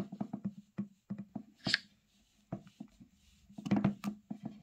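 A string of light clicks and taps from handling a Samsung Galaxy S23 Ultra and its S Pen stylus on a wooden table, with a denser cluster near the end.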